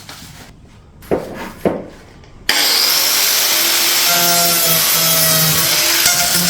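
A couple of light knocks, then about two and a half seconds in a power saw starts up and cuts steadily into the roof, a loud rasping cutting noise with a motor whine.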